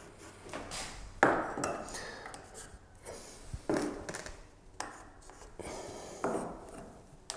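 Pencil marking lines on a wooden door jamb against a combination square: several separate strokes, each starting sharply and fading within about half a second, as a quarter-inch reveal is marked out.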